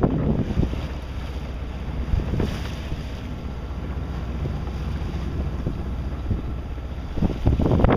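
Wind buffeting the microphone over the rush of sea water along a sailboat's hull, growing louder and gustier near the end.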